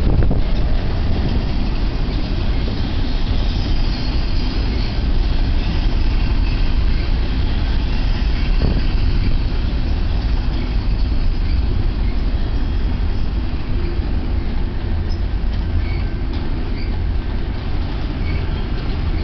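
Double-stack container well cars of a freight train rolling past close by: a steady low rumble of steel wheels on the rails, with faint high wheel squeals and a single knock about halfway through.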